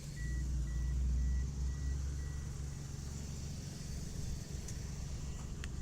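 A car engine idling steadily: the donor car running to jump the RAV4's dead battery. A faint electronic chime beeps about twice a second and fades out partway through.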